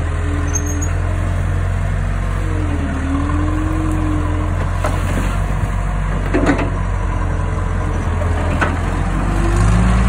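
Case 445CT compact track loader's diesel engine running steadily under load, its pitch dipping and rising as the boom and bucket work. A few sharp knocks stand out, the strongest about six and a half seconds in, as gravel is tipped from the bucket over a fence.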